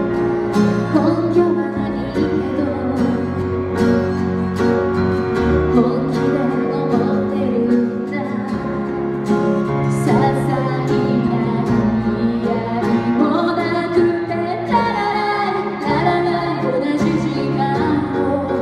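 Live acoustic pop ballad: a female voice singing over strummed acoustic guitar and a stage keyboard.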